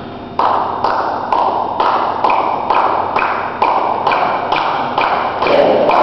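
A steady beat of sharp taps, about two a second, starting just under half a second in and ringing in a large hall, with a thin high ping on each beat from about two seconds in; a tempo beat setting the pace for a marching drill.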